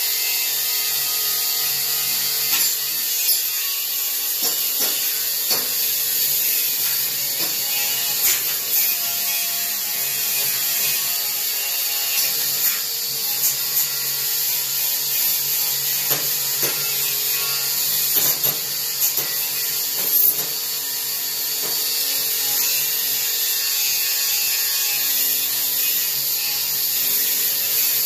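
A wire wheel on a handheld power tool spinning steadily against the steel mower deck, scrubbing off rust and loose paint, with scattered short ticks and catches as the wires bite.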